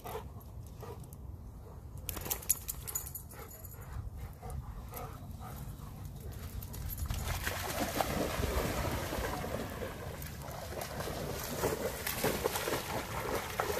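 Two dogs running and splashing through shallow floodwater. The splashing starts about halfway through and builds toward the end.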